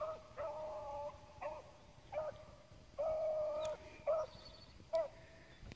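Beagles baying on a rabbit's trail. The calls are a mix of a couple of long, drawn-out bays and several short chops, repeating every half second to a second.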